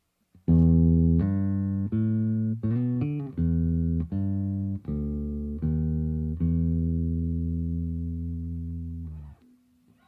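Aria Pro II CSB Deluxe "Cardinal" electric bass played: a string of plucked single notes with a quick run of changing pitches about three seconds in, ending on a long held note that is cut off about nine seconds in.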